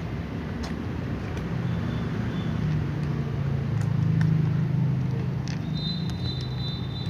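Low steady engine-like rumble that swells about four seconds in and then eases, with scattered faint clicks of cats crunching dry kibble and a thin high whine near the end.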